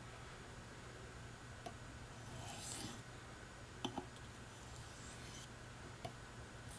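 Faint handling of sharpening gear on a bench: a few light clicks and taps and a couple of soft swishes, as the hard Arkansas stone and knife are set up for honing.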